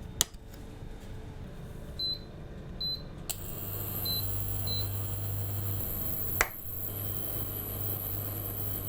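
An electric kitchen appliance's control panel beeps four short times as its buttons are pressed, then it clicks on and runs with a steady electrical hum and a thin high whine. There is a sharp click near the start and another about six and a half seconds in.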